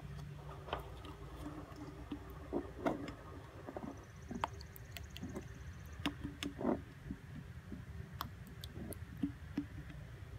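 Faint scattered clicks and light knocks over a low steady hum: hands at work during bleeding of the clutch hydraulics.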